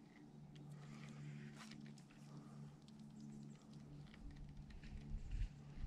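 Baitcasting reel being cranked during a retrieve: a faint steady whir with light scattered ticking, and a few low handling thumps near the end.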